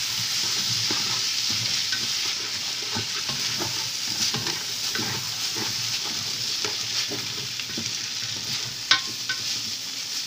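Chopped chicken liver and gizzards with vegetables sizzling in a pan while being stirred, a steady hiss with small scraping clicks from the utensil. A couple of sharper knocks of the utensil on the pan come near the end.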